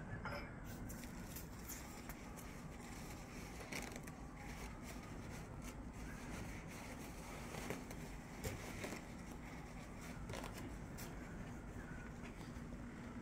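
Faint scattered clicks and rustles of hands handling a wooden axe handle and glue bottle, with a few slightly louder knocks about 4 and 8 seconds in, over a steady low hum.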